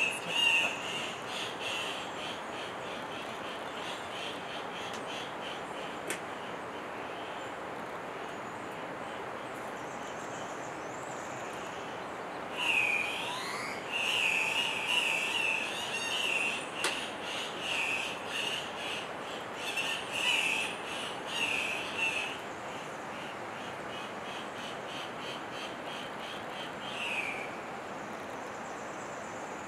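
Andean cock-of-the-rock calling at its lek: a run of loud, rattling calls, some sweeping up and down, clustered around the middle with one more near the end. A steady high insect-like trill runs beneath.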